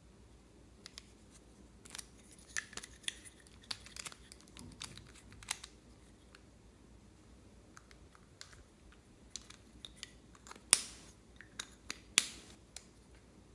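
Slime being handled, giving scattered sharp clicks, pops and crackles, with two louder snaps near the end.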